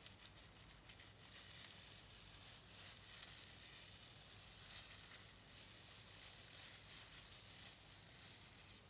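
Hands rubbing and scrubbing foam-lathered hair: a faint, irregular wet rustle of many small strokes.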